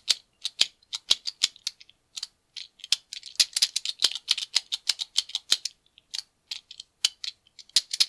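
Master Lock Speed Dial directional combination lock being worked by hand: its dial is pushed through a series of moves, clicking sharply several times a second in quick bunches with short pauses about two seconds in and about six seconds in. Each click is a step of the dial as the combination is stepped through while feeling for a gate.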